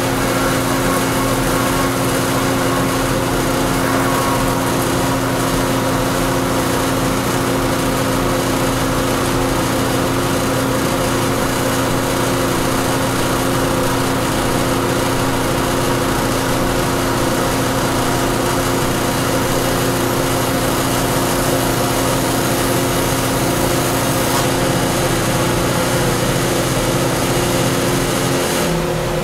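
Router with an upcut spiral bit running steadily at speed while flush-trimming plywood, a steady whine over a broad hiss. Its pitch drops just before the end as it winds down.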